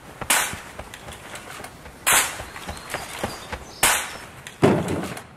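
Four sharp cracks about two seconds apart, each dying away quickly, the last one deeper and heavier, with small ticks and a faint rustle between them.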